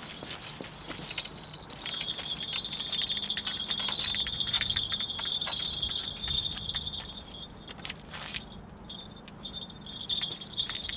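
Fishing reel being wound in on a shore rod as a hooked fish is brought in: a steady high metallic whirr with fast clicking, louder in the middle.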